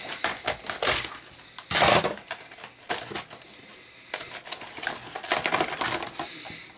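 Action figure packaging being opened: a cardboard box and clear plastic blister tray handled and pulled apart, giving irregular plastic crinkles and clicks, with a louder crackle about two seconds in.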